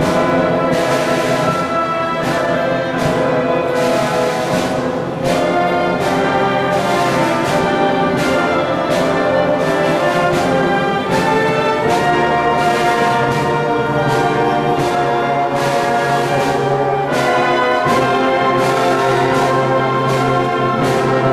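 Full school orchestra of strings, brass, woodwinds and percussion playing together, with sustained brass and string chords over a steady beat.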